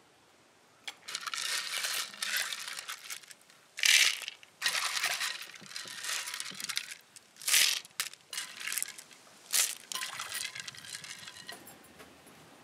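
Clam shells rattling and clinking against each other as they are washed by hand in a clay pot of water, in repeated bursts of a second or two.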